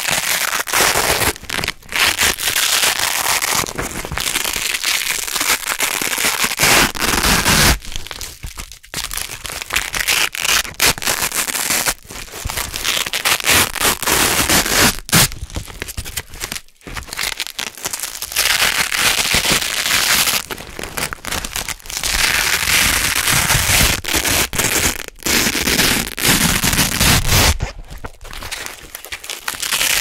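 Hook-and-loop (Velcro) fastener being pulled apart again and again. Each pull is a crackling rip lasting one to several seconds, with short breaks between pulls.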